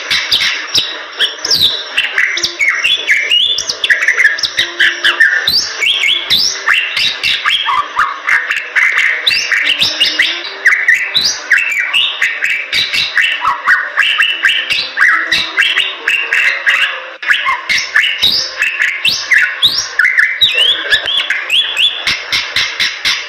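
Bali myna singing energetically: a fast, unbroken stream of chirps, rising and falling whistles and harsher notes, with many sharp clicks among them.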